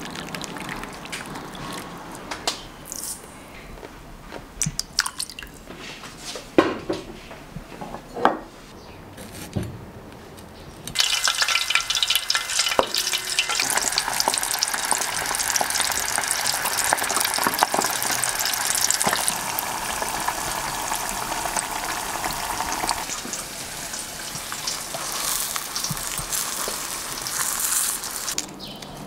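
Light kitchen knocks and a trickle of liquid. Then, about eleven seconds in, a loud, steady sizzle of horse mackerel deep-frying in hot oil, which lasts most of the rest and eases off near the end.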